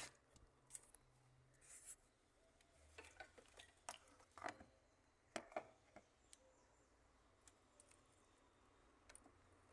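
Near silence with faint scattered clicks and light scrapes of handling, a cluster of them in the middle.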